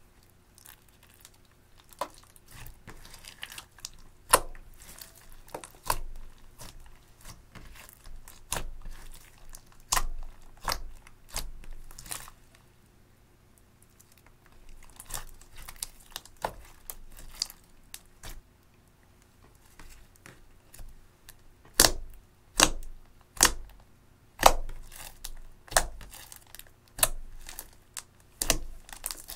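Clear slime mixed with crushed teal eyeshadow being pressed, folded and stretched by hand, giving irregular sharp pops and crackles. There are a couple of quieter pauses, and the loudest pops come in a quick run later on.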